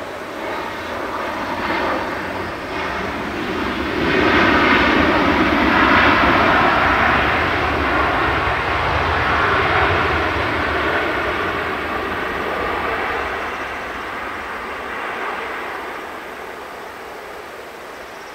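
Boeing 737-700's CFM56 turbofan engines during the landing rollout: a broad jet roar that swells about four seconds in, fitting reverse thrust being applied after touchdown, stays loudest for several seconds, then fades as the airliner slows and rolls away.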